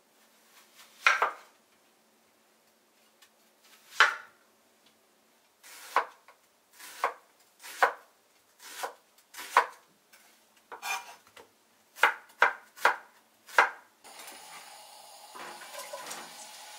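Kitchen knife slicing through an onion onto a wooden cutting board: about a dozen separate, unhurried cuts at irregular spacing. Near the end a steady sizzle starts as the sliced onion goes into a hot frying pan.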